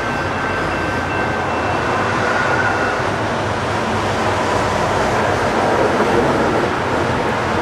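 Hi-rail pickup truck rolling along the railroad track toward the listener, a steady rumble of its wheels on the rails mixed with road traffic.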